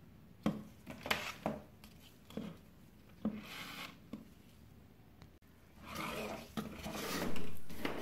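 Handling noises of a plastic washing-machine drain motor and multimeter probes on a workbench: several sharp clicks and knocks in the first four seconds, then a longer rubbing, scraping noise near the end.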